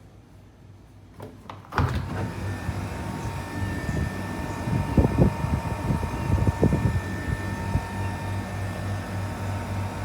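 Mitsubishi Heavy Industries SRK13CRS-S3 mini split air conditioner switching on about two seconds in and running with a steady hum and a faint whine, with a few dull knocks in the middle.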